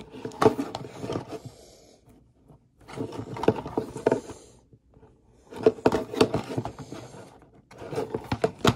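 Plastic DVD cases being handled and turned over, scraping and clicking against each other and the desk in about four bouts of handling noise.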